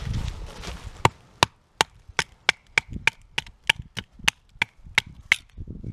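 A knife being knocked down through a short chestnut stick to split it lengthwise in two. There are about fourteen sharp wooden knocks, roughly three a second, starting about a second in, after some low rustling.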